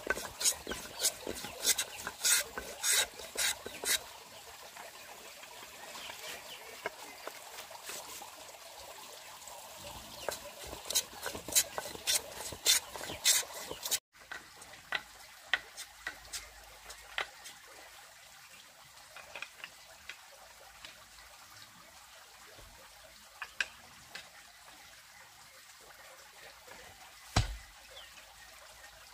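A hand tool working wood in quick, even strokes, about three a second, in two spells with a pause between. After an abrupt cut there is a faint background with scattered light ticks and a single thump near the end.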